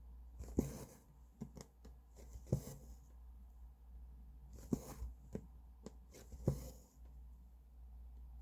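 Needle and thread being worked through cross-stitch fabric: a short, sharp, scratchy sound as each stitch is pierced and pulled through, about every second or two.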